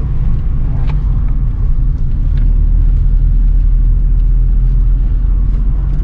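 Steady low rumble of a car's engine and tyres on the road, heard from inside the cabin while driving, growing slightly louder about two seconds in.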